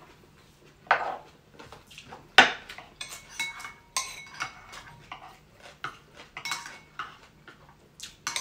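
Metal spoons and forks clinking and scraping against ceramic bowls and plates in a quick run of separate clinks, the sharpest about one and two and a half seconds in, some ringing briefly.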